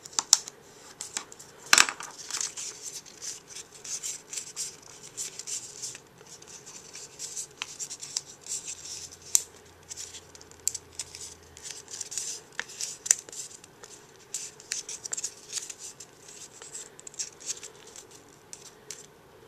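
Scored designer paper being folded by hand into an accordion fold: dry crackling and rustling with many small sharp crinkles as each crease is pressed, and one sharper snap about two seconds in.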